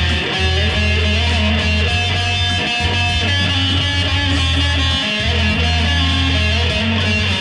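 Electric guitar played through an amplifier, with held, layered notes over a steady low bass note that breaks off briefly and comes back about every two and a half seconds.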